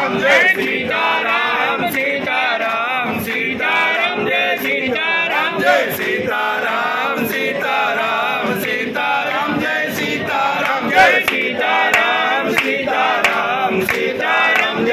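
Many voices chanting and singing a Hindu aarti together, as a crowd of devotees.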